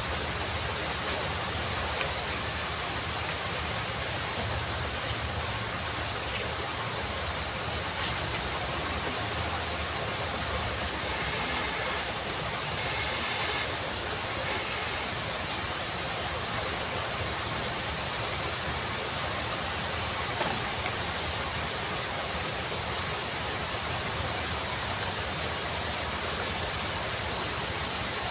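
Steady hiss of rain mixed with a continuous high-pitched insect chorus. The insect drone fades out briefly about twelve seconds in.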